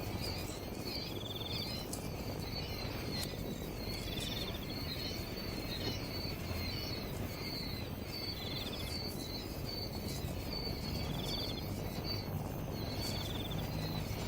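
Insects and birds calling: a continual run of short high chirps, with a brief buzzy trill every few seconds, over a low steady hum.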